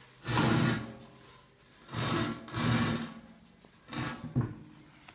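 Sheet-metal tender of a model traction engine being lifted and shifted on a wooden workbench: four short scraping, rubbing bursts of metal against wood and hands.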